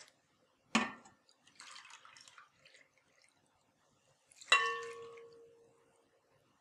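A glass tumbler clinks about a second in. About four and a half seconds in it clinks against the rim of a glass mixing bowl with a ringing tone, as warm water is poured from it into milk in the bowl.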